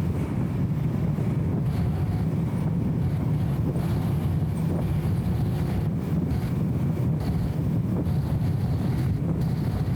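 Steady low rumble of a BMW E34 M5 Touring on the move, its straight-six engine and road noise blended into an even drone. The sound is dull and muffled by the camera's anti-wind filter.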